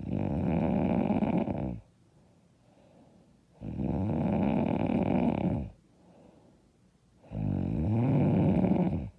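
A woman snoring loudly and hard: three long, rattling snores, one about every three and a half seconds, with quiet breathing between them.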